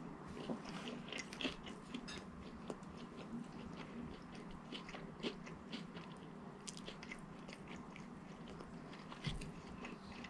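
Close-miked chewing and biting of a breaded spicy chicken sandwich: a faint, irregular run of small crunches and wet clicks from the mouth.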